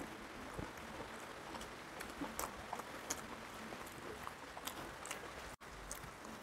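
Close-up eating sounds: fingers mixing rice and chicken curry on a steel plate, with scattered small wet clicks and smacks. The sound cuts out for an instant about five and a half seconds in.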